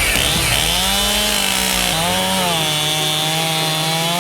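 Stihl Farm Boss two-stroke chainsaw running at high revs as it cuts into a rotten tree trunk, its pitch sagging a little about two seconds in as the chain bites.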